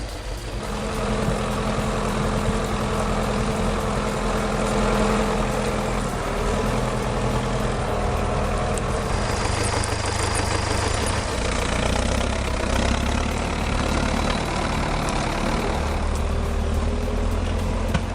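Belarus 1025 tractor's diesel engine running, its note shifting a few times.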